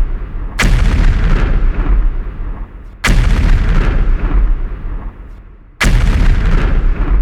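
Three loud booming blasts, each starting suddenly with a heavy low rumble and dying away over about two seconds, spaced about two and a half seconds apart.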